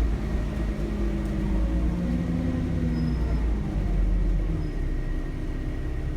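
Alexander Dennis Enviro400 double-decker bus heard from inside while under way: its Cummins ISBe diesel engine runs with a low rumble whose pitch changes a couple of times, with a faint steady high turbocharger whistle over it.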